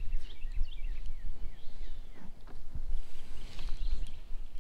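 Wind rumbling on the microphone over open water, with small birds chirping now and then, mostly in the first second and again near the end.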